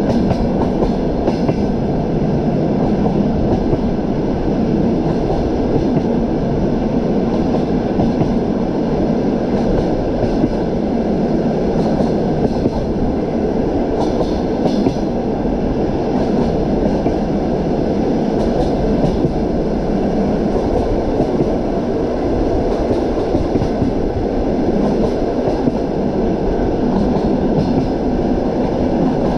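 Train wheels running on the rails at steady speed, heard from aboard: a continuous rumble with faint, irregular clicks of the wheels knocking over the track.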